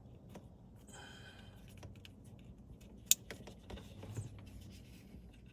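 Small plastic clicks and light handling noise as wire terminals are worked out of and pushed into the holes of a wiring connector, with one sharp click about three seconds in.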